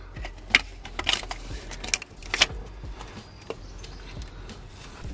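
Old head gasket of a Vauxhall Astra 1.6 being pried and peeled off the engine, where it has stuck fast after years in place. There are sharp clicks and scrapes about half a second, one second, two seconds and two and a half seconds in, then quieter handling.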